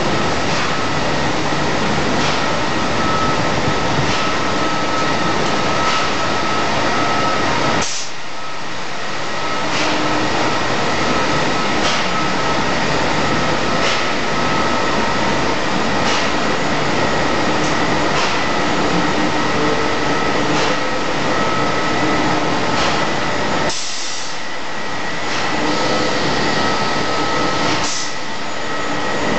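Loud, steady drone of plant machinery inside a chemical works building, with a couple of steady whining tones over it and a faint tick about every two seconds. The noise dips briefly twice.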